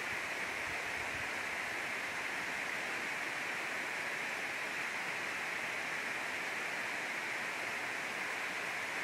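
Steady rush of water spilling over a dam spillway, an even hiss with no change in level. The flow is fairly light.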